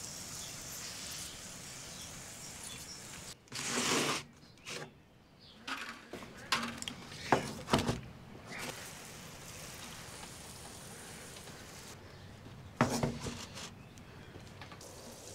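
Water sprinkling from a watering can's rose onto seedling trays, a steady hiss for the first few seconds. After that come a burst of noise and a few sharp knocks and rustles as plastic seedling trays are handled.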